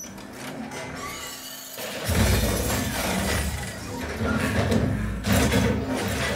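Film soundtrack, music and effects, playing through a pair of Polk Audio Signature S55 tower speakers and picked up by a microphone in the room. Heavy bass comes in about two seconds in and carries on.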